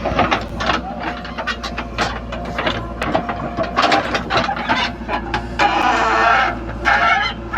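Diesel engine of a JCB 3DX backhoe loader running steadily, with repeated knocks and clatter from the machine working. About six seconds in there is a rushing noise for about a second.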